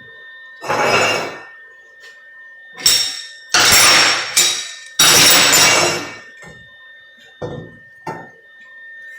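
Lincoln MIG welder laying tack welds on steel tube: a series of harsh crackling arc bursts, the longest about a second each, the last two brief.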